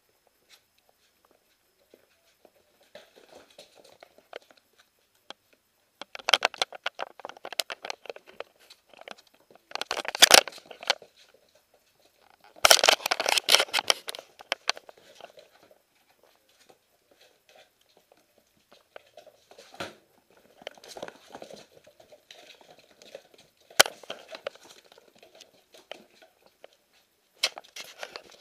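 Siberian husky puppies scampering and tussling on a hard floor: bursts of claw clicks, patter and scuffling, loudest about ten and thirteen seconds in.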